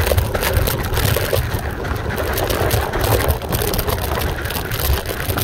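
Kaabo Mantis electric scooter ridden over a rough dirt track on hybrid tyres: a steady low rumble of tyres on the ground and wind on the microphone, with constant small rattles and knocks from the ride.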